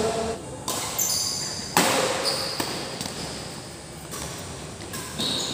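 Badminton rally: rackets striking the shuttlecock several times, the sharpest hit a little under two seconds in, with short high squeaks of shoes on the court floor between hits. The strokes echo in a large hall.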